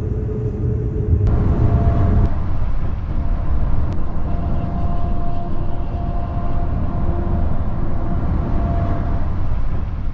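Steady low rumble of highway road noise, tyres and engines, heard from a moving vehicle driving close to semi-trucks. The sound changes abruptly about one and two seconds in.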